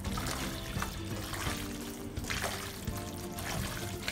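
Background music over the wet squelching and sloshing of raw chicken skins being mixed with salt and black pepper.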